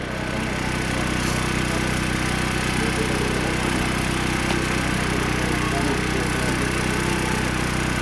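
An engine running steadily: a constant low hum with a hiss over it.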